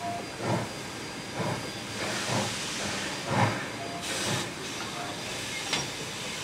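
NSWGR 32-class steam locomotive 3265 working a train, its exhaust chuffing about once a second over a steady hiss of steam. The beats grow fainter after about four seconds as the locomotive draws away, and a short burst of hiss comes at about the same time.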